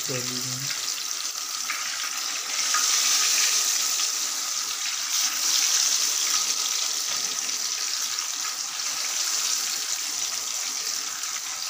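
Fish pieces coated in spiced gram-flour batter deep-frying in hot ghee: a steady sizzle that swells louder about three seconds in and again about five seconds in.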